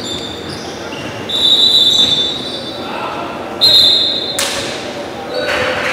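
Basketball shoes squeaking on a hardwood gym floor: two longer, high squeals, about a second and a half in and again near four seconds, the second followed by a sharp knock, all echoing in the large hall.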